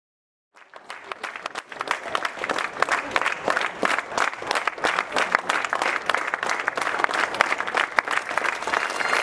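A crowd of people clapping: the applause comes in about half a second in, builds over the next second or two and then carries on steadily.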